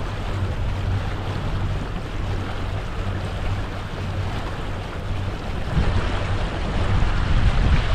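Sailing yacht under way, its inboard engine giving a low steady hum under the rush of wind and water. The noise grows louder near the end.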